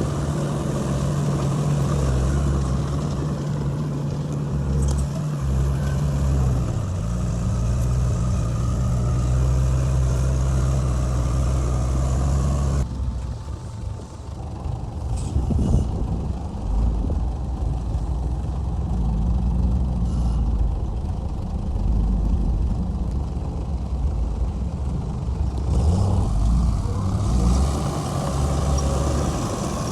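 Heavy diesel earthmoving machinery running steadily at a construction site, a bulldozer or dump truck engine. The sound changes abruptly twice, about halfway through and near the end.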